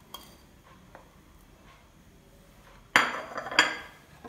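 Glass kitchen bowls and dishes clinking and clattering: faint taps at first, then a loud clatter about three seconds in with a second clink just after, both ringing briefly.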